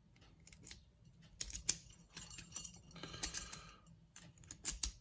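A key jingling against a small metal lock as it is handled and used to lock the lock back up: scattered sharp metallic clicks and rattles, with the loudest pair of clicks near the end.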